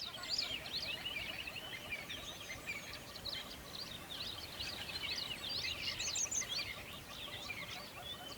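Many small birds chirping at once in a dense, continuous chorus of quick, overlapping high chirps and short whistled sweeps.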